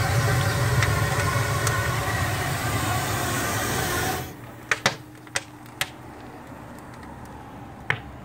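Steam blower on a fired fire-tube boiler rushing steadily with a low rumble as it pulls air hard through the wood fire. It cuts off suddenly about four seconds in as the blower valve is closed, followed by a few sharp clicks.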